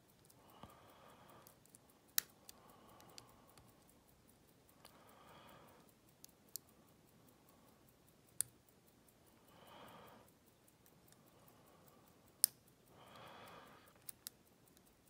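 Sparse, sharp clicks of a lock pick working the pin stacks inside a rekeyable pin-tumbler lock during single-pin picking, about half a dozen clicks a second or more apart. Soft, hushed swells of noise come and go between them.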